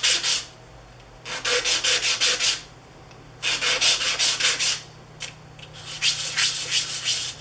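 Thin wooden shims rubbed by hand back and forth on sandpaper in quick strokes, about five a second, in four short spells with brief pauses between them. The sanding takes the fuzzy hairs left by the saw off their edges.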